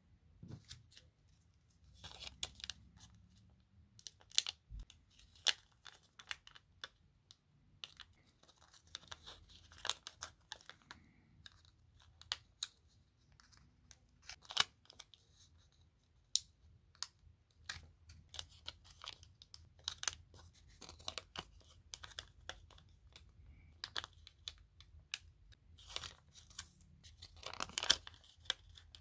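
Stickers being peeled off their backing sheet and a roll of dot stickers, then pressed and rubbed down onto paper: a run of short crackling peels, snaps and rustles, a few louder ones near the end.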